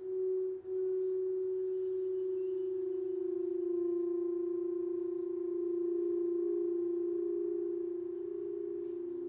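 Crystal singing bowls ringing a sustained tone that wavers at first and then holds steady, with fainter higher overtones. A second, lower bowl tone joins near the end.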